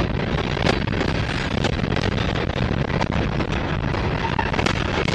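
Freight train's covered hopper cars rolling past at close range: a steady, loud wheel-on-rail rumble broken by irregular sharp clicks and clanks from the wheels and cars.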